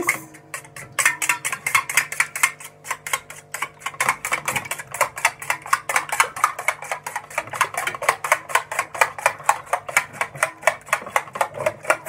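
Eggs being beaten briskly in a stainless steel bowl, the utensil clicking against the metal in a quick, even rhythm of about five to six strokes a second.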